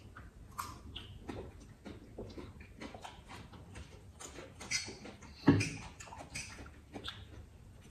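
Close-miked eating sounds: chewing and crunching of raw cucumber slices and noodles, with many small mouth clicks, smacks and sips. About five and a half seconds in, a drink can is set down on the table with a knock.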